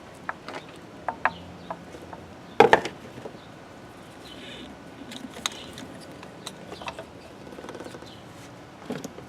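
Scattered light clicks and taps of parts and tools being handled in the engine bay, with one louder clatter about two and a half seconds in.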